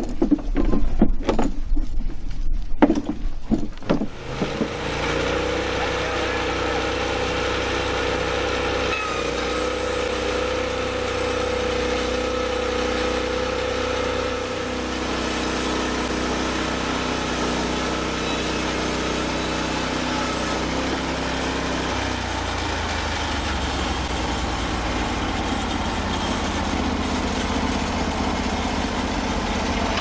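A few knocks and clatter, then from about four seconds in the gasoline engine of a Norwood LumberPro HD36 portable band sawmill runs steadily, driving the band blade through a log as the saw head is pushed along by hand. The engine note changes about 22 seconds in.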